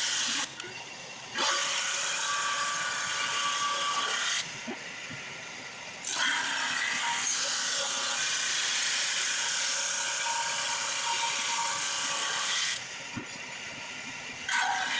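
Drum sander and shop vac running, with a loud, harsh hiss while the ash board is fed under the abrasive drum. The sound drops to a quieter, duller hum three times: about half a second in, around the fifth second, and near the end.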